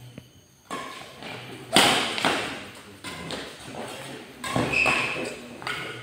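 Badminton doubles rally: rackets striking the shuttlecock, sharp hits echoing in a large hall, the loudest about two seconds in.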